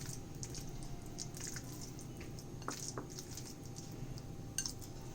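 Soft, faint squishing and light smacks of wet marinated minced chicken paste being rolled into balls between the hands.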